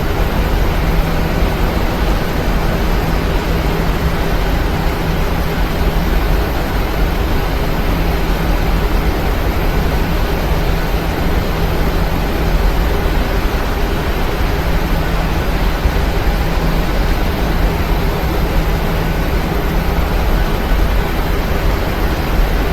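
Steady roar of a Boeing 737-900 jet's engines and rushing air heard inside the passenger cabin, even and unchanging, with a faint low hum beneath.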